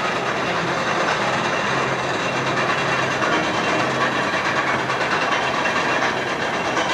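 Roller coaster train climbing the lift hill, the chain lift clattering steadily with a low mechanical hum underneath.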